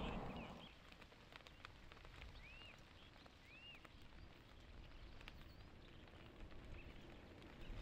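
Near silence: faint outdoor ambience with a few short, arched bird chirps and scattered light clicks.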